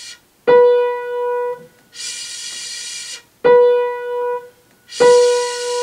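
Breathy whistling tone of air blown across the top of a 35 cm glass tube open at both ends, sounding near the B above middle C. It alternates with a piano striking that same B three times, each note sharp and fading. Near the end the blown tone and a piano strike start together.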